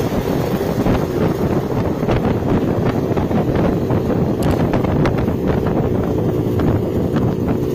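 Two-stroke Yamaha RX-series motorcycles running at road speed, their engines and exhaust a steady dense drone, with heavy wind buffeting on the microphone.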